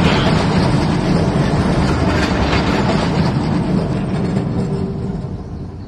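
Streetcar rolling past on its rails, with a steady rumble and clacking wheels, fading away over the last second or so.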